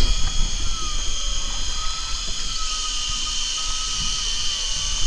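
Electric deep-drop fishing reel motor whining steadily as it winds in line with a hooked fish on, its pitch wavering slightly with the load, over a low rumbling hiss.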